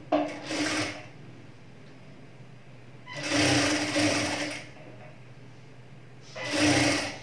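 Industrial sewing machine stitching in three short runs: a brief one at the start, a longer one of about a second and a half in the middle, and a brief one near the end, each stopping cleanly. It is sewing down the folded edge of a blouse piece.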